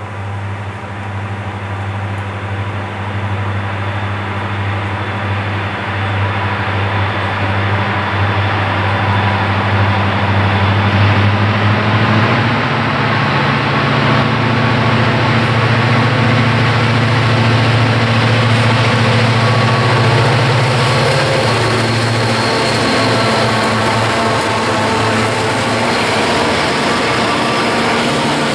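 Diesel freight locomotives, two EMD SD40-2s and an EMD SD60 with their two-stroke engines, approaching and passing, their low engine drone growing louder through the first half. After they pass, the steady rolling noise of double-stack container cars going by takes over.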